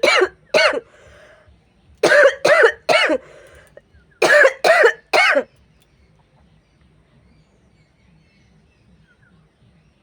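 A woman coughing on purpose in three quick clusters of two or three forced coughs, each cluster about two seconds after the last. The coughing stops about five and a half seconds in.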